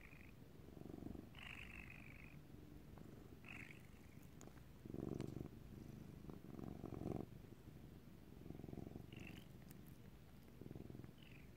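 Black-and-white domestic cat purring close to the microphone, the purr swelling and fading with each breath about every one and a half to two seconds.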